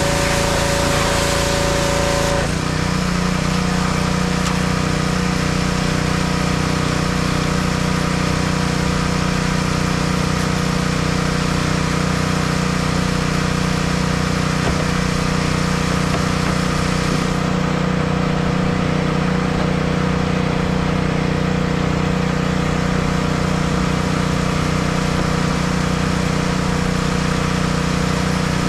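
A pressure washer sprays for about two seconds with a loud hiss. Then the spray stops, the engine note changes, and its engine runs on steadily at a low hum.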